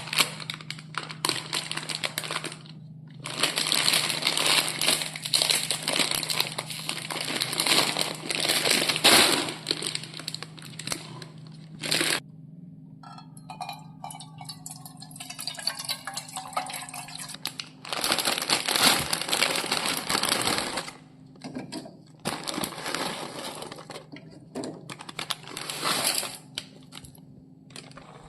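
Crinkly plastic packaging being handled and torn, in repeated bursts a few seconds long, over a steady low hum.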